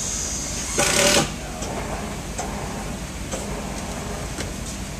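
Case clamp running steadily as it presses a compressed maple plank into a curved form. A short, loud burst comes about a second in, and a few faint clicks follow.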